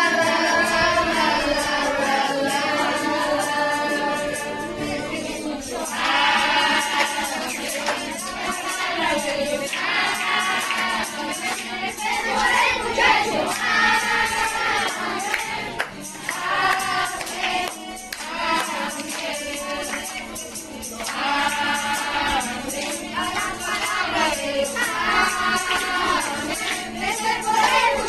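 A group of voices singing a worship song together, accompanied by a tambourine shaken and struck in rhythm.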